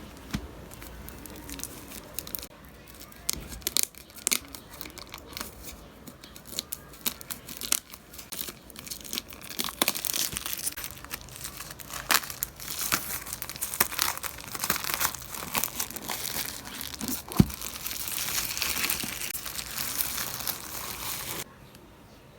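Plastic packaging being crinkled, handled and torn open: a string of sharp crackles and rustles that grows busier about halfway through and stops abruptly near the end.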